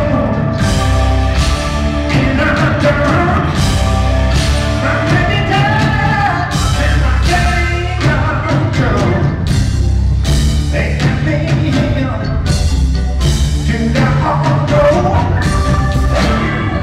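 Live rock band playing at full volume: a male lead vocal over electric guitar, bass and a steady drum beat.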